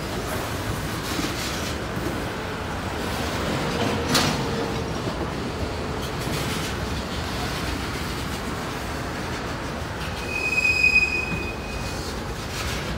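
Freight cars rolling past with a steady rumble of steel wheels on rail. A single sharp clank comes about four seconds in. A high wheel squeal sounds for a second or two near the end.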